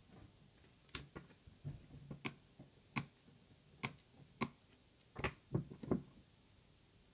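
About ten sharp, irregular clicks over five seconds from small hand tools on a circuit board: side cutters trimming component leads, then the helping-hands' metal alligator clips releasing the board.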